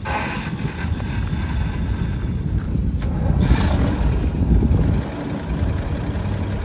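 Engine of a Toro 36039 golf course tractor running at idle with a low, uneven rumble, a little louder about halfway through.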